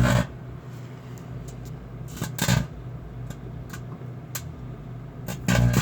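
Microwave oven running with a steady hum while a rusty chain inside it arcs: irregular crackling snaps, and two louder buzzing bursts, one about two seconds in and one near the end.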